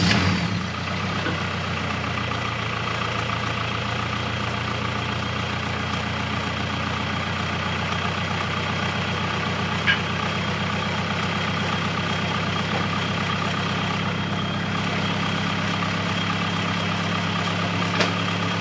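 Turbocharged G23 VTEC engine in a Honda Civic idling steadily just after starting, settling down in the first second and left to warm up. A brief click about ten seconds in and another near the end.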